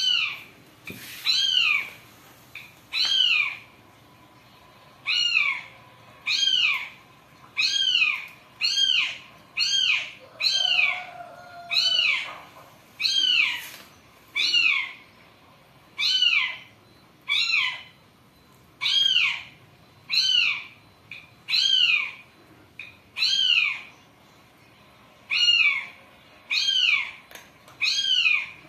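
A kitten meowing over and over: short, high calls that rise and fall in pitch, about one a second. Around ten seconds in, a lower, longer meow from a second cat sounds under them.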